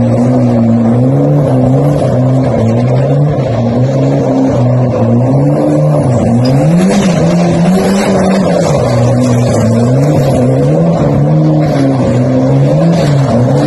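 Pickup truck engine held at high revs while the truck spins its wheels on gravel. The pitch keeps swinging up and down as the throttle is worked, with a steep rise and fall about six seconds in.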